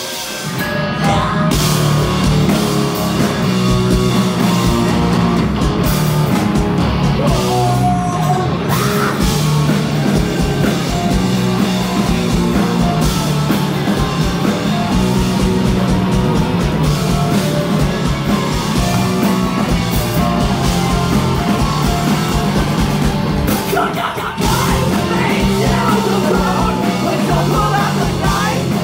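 Live rock band playing electric guitars, bass and drums, with a short break in the playing about three-quarters of the way through.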